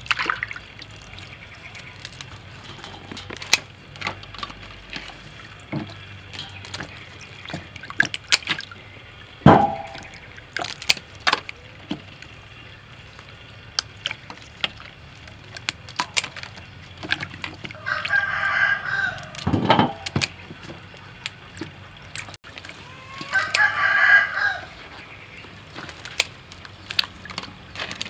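A rooster crowing twice, once about two-thirds of the way through and again near the end, each crow lasting a second or two. Scattered sharp clicks and knocks are heard throughout.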